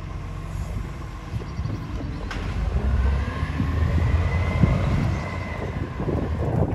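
Garbage truck's diesel engine running as it moves along the street, growing louder about halfway through, with a whine that rises and then falls.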